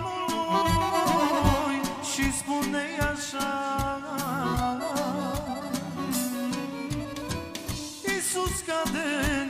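Live band playing an instrumental break: a saxophone plays a wavering melody over electronic keyboards and a steady drum beat.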